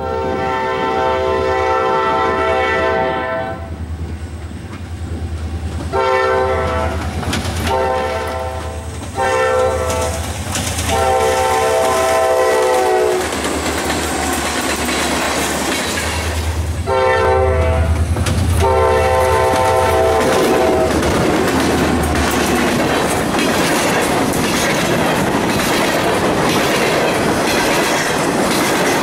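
EMD SD40M-2 diesel locomotive blowing its multi-chime horn: one long blast, then six shorter blasts, over a low diesel rumble as the locomotives approach and pass. After that, empty covered grain hopper cars roll by close, with a steady clattering of wheels over the rail joints.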